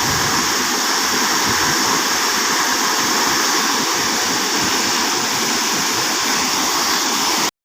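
Waterfall: a steady rush of falling water that cuts off abruptly near the end.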